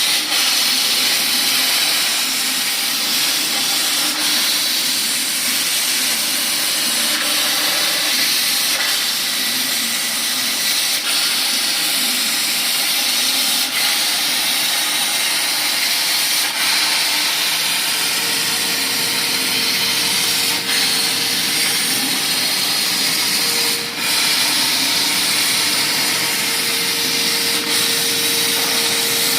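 CNC plasma cutter running a cut: the plasma arc gives a loud, steady hiss throughout, and a steady whine joins about two-thirds of the way in.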